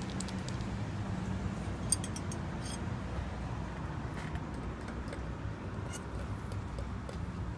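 Steady low background hum with scattered light clicks and clinks, the sharpest click about two seconds in.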